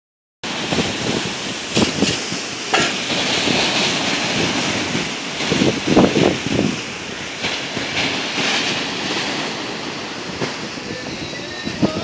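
Sea surf breaking against a stone seawall, a steady wash of water with surging crashes, the loudest splash about six seconds in. Wind gusts buffet the microphone.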